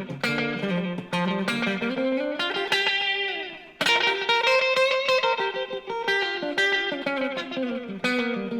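Electric guitar played through a TC Electronic Flashback X4 delay pedal, with picked notes echoing in delay repeats. A line of notes climbs in pitch over the first few seconds; the guitar is struck again loudly just before the midpoint and keeps playing.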